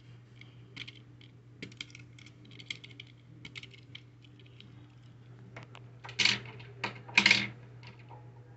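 Light clicks and taps of small die-cast metal toy cars being handled against a plastic blister tray, then two louder short rustling scrapes about a second apart near the end. A faint steady low hum runs underneath.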